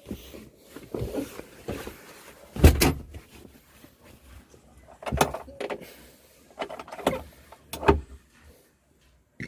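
Knocks and clunks of a cover being handled and put back in place on the van, about six separate hits with rustling between, the loudest about two and a half seconds in.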